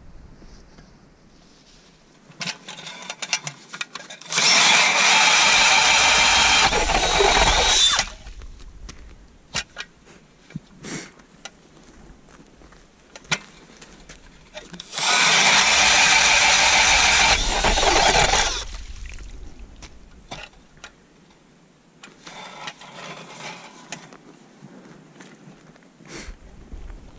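Makita cordless drill driving a Mora ice auger, running at a steady whine in two long bursts of about four seconds each as it bores into ice. Scattered clicks and knocks come between the bursts.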